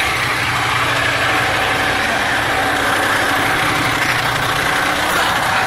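Fire engine's diesel engine idling steadily.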